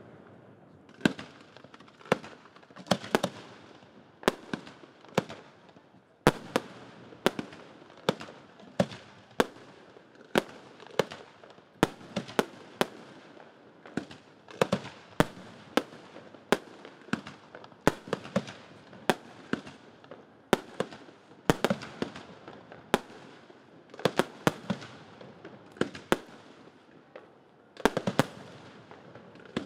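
Aerial fireworks shells bursting overhead in a steady barrage: sharp bangs about once a second, sometimes two in quick succession, each trailing off briefly in echo.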